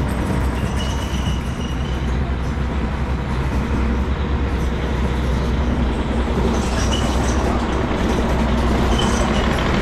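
Steady low engine rumble under a constant haze of background noise, with no clear start or stop.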